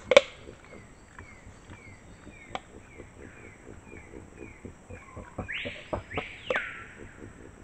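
White-lipped peccaries clacking their teeth: sharp clicks, one loud clack right at the start and fainter ones scattered through. Over them a forest bird repeats short falling chirps about three a second, then gives two louder arching calls about two-thirds of the way in.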